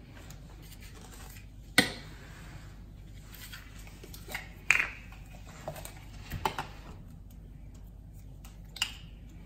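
Small handling clicks and taps from water test strips and their plastic tube being picked up and set down on a stone worktop. There is one sharp click a little under two seconds in, then three or four softer clicks spaced out over the rest of the time.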